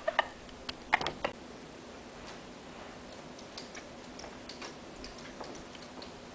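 A few sharp clicks and taps within the first second and a half, then quiet room tone with scattered faint ticks.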